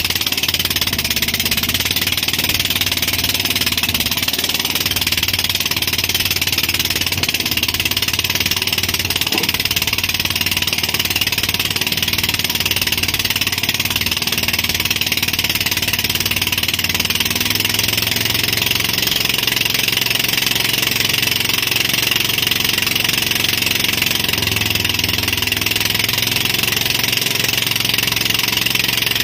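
Tow boat's engine running steadily under way while towing, a low hum that shifts slightly in pitch a couple of times, under a constant hiss of wind and water spray.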